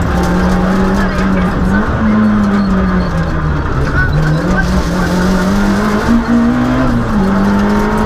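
Citroën Saxo Group A6 rally car's four-cylinder engine driven hard, heard from inside the cabin, its revs dipping and climbing again several times.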